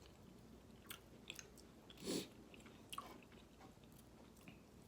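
Faint close-up chewing and mouth sounds of someone eating, with a few soft clicks and one slightly louder brief noise about two seconds in.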